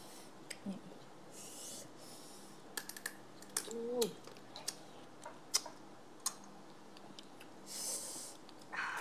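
Eating at the table: chopsticks clicking and tapping against plates and a tray in scattered single clicks, with two breathy hisses and a brief hummed voice sound about four seconds in.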